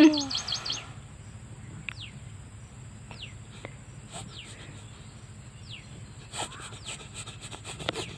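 Birds chirping in the background: a brief rapid trill right at the start, then short falling chirps about once a second. A few light clicks and rustles come near the end.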